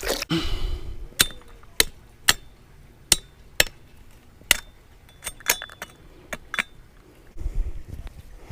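A series of sharp, separate clinks and taps, about a dozen spread unevenly over several seconds, as of hard objects knocking together while being handled.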